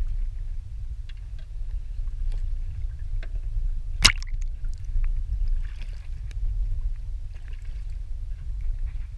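Steady low wind rumble on the camera microphone, with light water sloshing and small splashes at the boat's side. There is one sharp knock about four seconds in.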